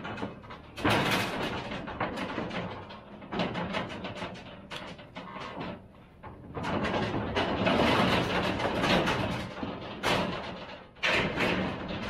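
Metal stock trailer and pipe-gate loading chute clattering and banging as cattle move through them and are loaded, in several noisy bursts.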